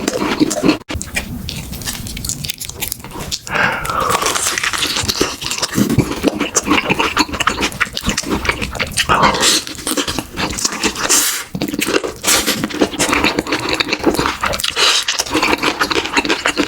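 Eating sounds: dense, irregular chewing and mouth noises that run on without a break.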